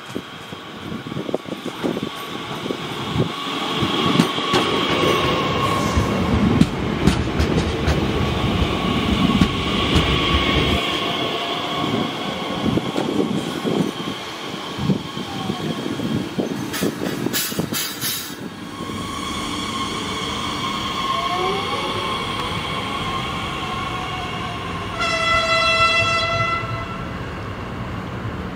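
DB Class 442 Talent 2 electric multiple unit passing close by, its wheels clattering over the rails, with an electric motor whine that glides up and down. Near the end the train sounds its horn once, for about a second and a half.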